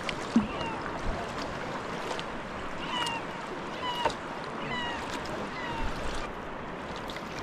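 Sea kayak under way: water splashing and lapping around the hull and paddle blades, with a few sharp ticks. Several brief high calls, each a quick falling note, come at intervals.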